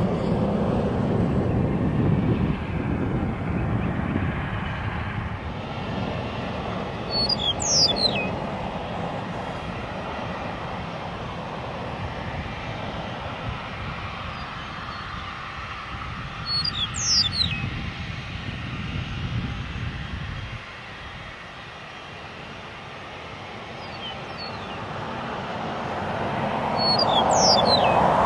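A jet airliner's engines rumble as it climbs away, fading over the first twenty seconds. Near the end, a small single-engine propeller plane's engine grows louder as it approaches. A bird chirps three times, about ten seconds apart, each call a short falling phrase.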